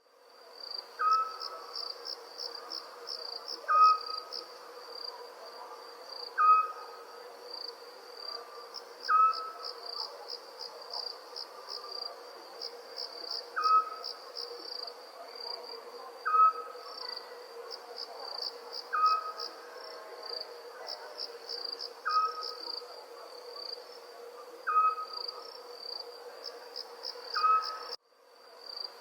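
Crickets chirping in a steady, fast pulsed trill, with a short, louder animal call repeating about every two and a half to three seconds over it. The sound drops out briefly just before the end.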